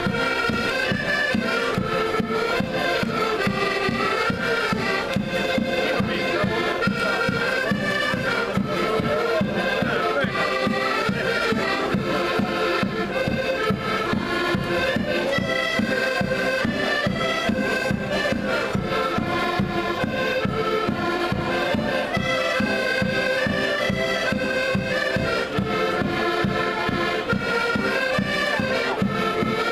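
A group of Portuguese concertinas (diatonic button accordions) playing a lively traditional folk tune together, with a steady beat in the bass.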